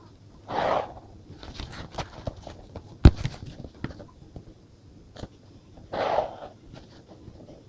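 Paper and stationery handling on a desk: two short paper swishes about five seconds apart, with a sharp click and a scatter of light taps between them.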